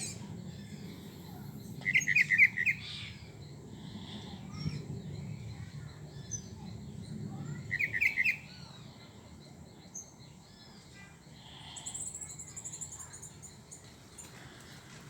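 Wild birds singing: a short, rapid chattering trill comes twice, about six seconds apart, with scattered faint chirps, and a thin, very high trill sounds near the end. A low, steady hum runs underneath.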